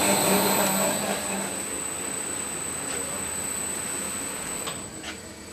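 Industrial meat dice cutter and its conveyor running: a steady mechanical hiss and hum with a thin high whine, easing off over the first couple of seconds. The whine stops near the end, leaving a few sharp clicks.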